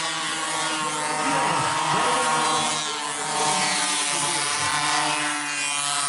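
An engine or motor droning steadily at an even pitch.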